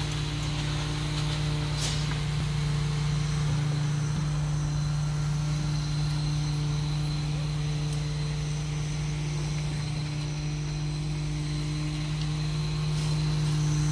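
Heavy diesel engine of construction machinery running at a constant speed, a steady low drone.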